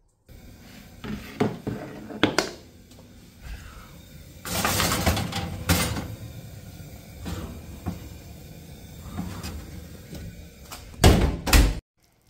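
Oven door being opened and a metal baking tray pushed onto the oven rack, with scattered knocks and clatter. The loudest knocks come near the end.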